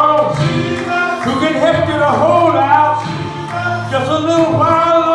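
Gospel song: voices singing over a steady instrumental backing with sustained low bass notes.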